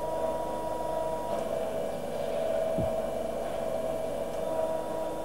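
Hydraulic training rig running with a steady mechanical hum. A higher whine cuts out about a second and a half in, a short low knock comes near the middle, and the whine returns near the end: a hydraulic motor being stopped and restarted through a 4/3-way directional valve.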